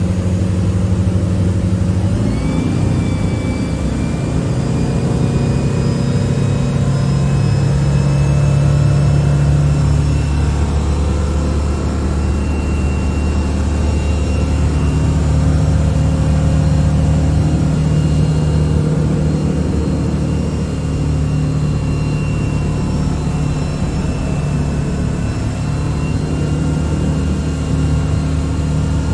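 A 2020 Moomba wakeboat's 6.2-litre Raptor 400 inboard V8 running underway, heard from the helm. The engine note rises about two seconds in as the boat speeds up, then holds steady at cruise, mixed with the rush of wind and water.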